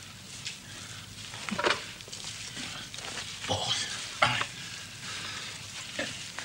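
Soil being dug and a sack of earth being dragged in a cramped tunnel: a steady gritty scraping and rustling, with about four louder scrapes along the way.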